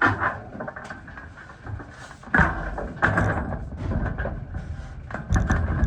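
Sheet-metal carport roofing being handled: uneven knocks and metallic clatter, with louder bangs at the start, about two and a half and three seconds in, and near the end.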